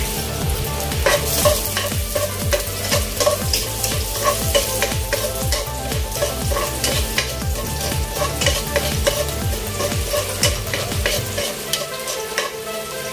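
Chopped aromatics sizzling as they fry in oil in a nonstick pot, stirred with a metal slotted spatula that clicks and scrapes against the pot many times.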